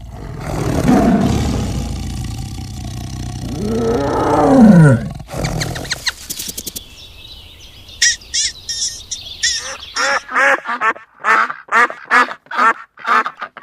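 A sequence of animal calls. First comes a deep, rough roar lasting about five seconds that ends in a call falling in pitch. Then, from about eight seconds in, a quick string of short, repeated calls, about three a second.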